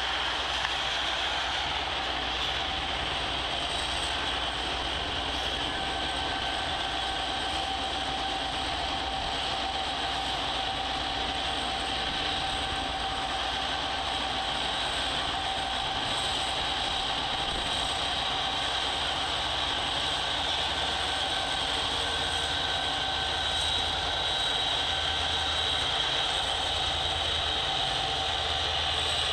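Freight trains passing: a steady rolling rumble of rail cars and locomotives, with a constant high whine over it.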